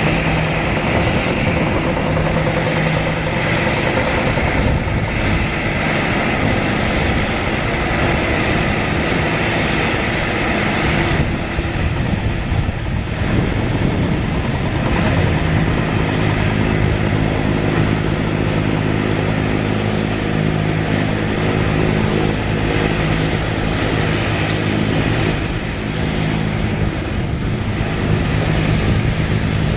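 Jet engine noise from a Boeing 737-900ER's CFM56-7B turbofans on approach: a steady, loud rush with a whine high up. About 12 to 15 seconds in it shifts to a steadier hum carrying several low tones.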